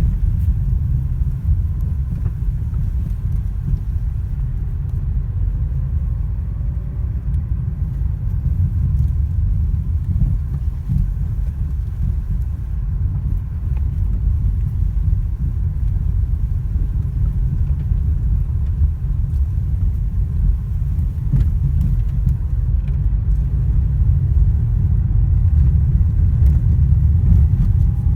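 Lada Vesta driving over uneven road: a steady low rumble from road and tyres, with a few sharp knocks from the suspension over bumps.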